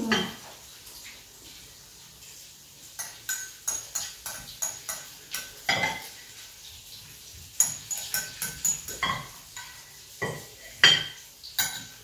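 Metal spoon clinking and scraping against a ceramic bowl: a string of light, irregular clinks, each with a brief ring. They come in two runs, starting about three seconds in, with a short pause just after the middle.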